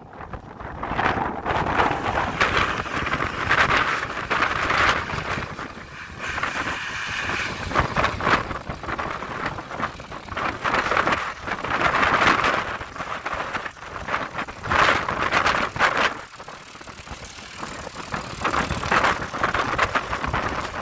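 John Deere 3350 tractor's diesel engine running as the tractor drives slowly across gravel, with wind gusting on the microphone.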